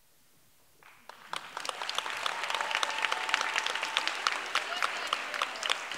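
Audience applause: after about a second of quiet, many hands start clapping and build quickly into steady applause.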